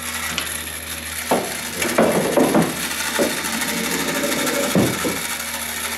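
Coin-operated pool table's battery-driven ball-release motor running steadily with a constant hum as it tilts the ball tray, with pool balls knocking and rolling several times over the middle seconds.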